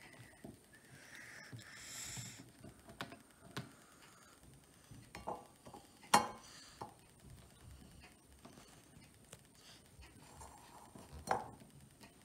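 Faint scattered clicks and taps of small rubber erasers being handled and set down on a granite countertop. A sharp knock about six seconds in, the loudest sound, is a phone set into a ceramic mug.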